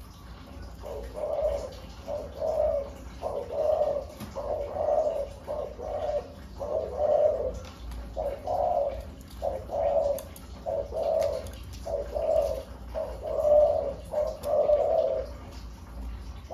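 Caged spotted dove cooing: a long run of low coo notes, roughly one or two a second, beginning about a second in and carrying on without a break.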